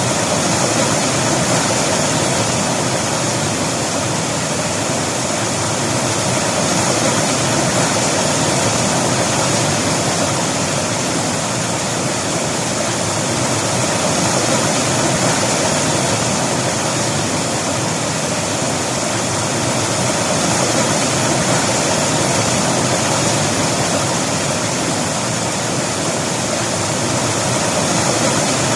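River water rushing and splashing over rocks, a steady full rush that never lets up.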